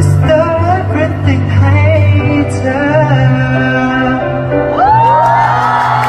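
A male singer's amplified voice singing over pop backing music. About five seconds in the singing stops and a crowd of fans starts screaming and cheering.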